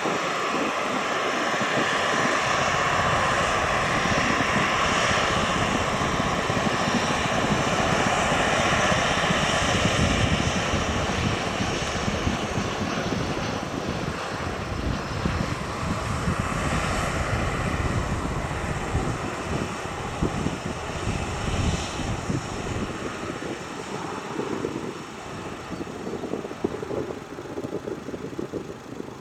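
Boeing 737-800's twin CFM56-7B turbofan engines running at taxi power as the airliner rolls past: a steady jet whine over a rumble, loudest about ten seconds in, then fading as the aircraft moves away.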